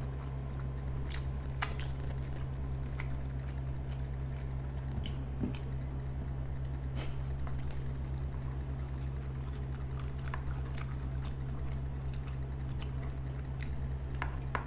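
Close-miked chewing and biting of soft-bun burgers, with small wet mouth clicks scattered throughout, over a steady low hum.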